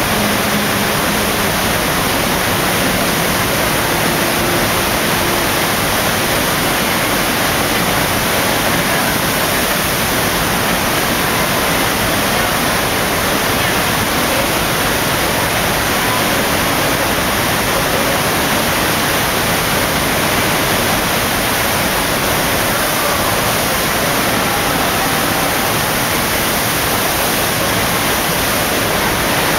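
FlowRider sheet-wave machine running: a steady rush of pumped water pouring up the padded ramp.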